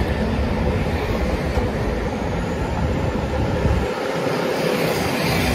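Steady outdoor noise of passing road traffic, with wind buffeting the microphone; the deep rumble drops away about four seconds in.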